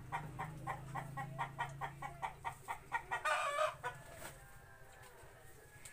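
Chicken clucking in a quick run of short notes, about four a second, ending in a longer, louder squawk about three seconds in, after which it goes quieter.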